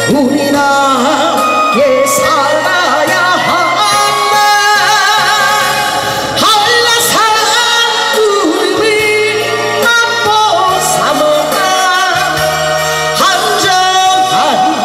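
A woman singing a Korean trot song into a hand-held microphone over a recorded backing track, amplified through the stage sound system.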